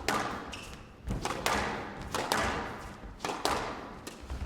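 Squash ball being struck by rackets and hitting the court walls in a fast rally: about seven sharp, echoing smacks, several in quick pairs of racket hit then wall hit. A short shoe squeak on the court floor about half a second in.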